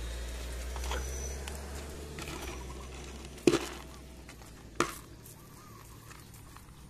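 Plastic tub knocking against concrete as it is hauled up out of a drain and set down: a sharp knock about three and a half seconds in and a smaller one about a second later, over low rumbling handling noise.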